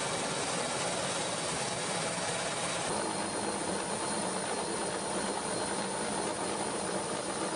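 Steady rushing noise of a helicopter in flight, heard from inside the cabin at an open door, its tone shifting slightly about three seconds in.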